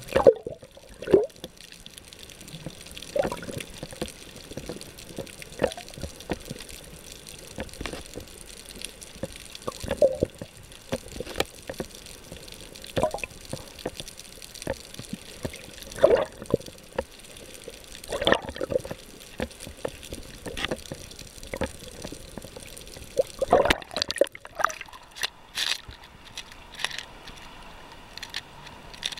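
Muffled underwater gurgling and sloshing at a submerged camera, with irregular short bubbly pops every second or two. About 24 s in, the camera breaks the surface and the sound turns to sharper splashing of small waves.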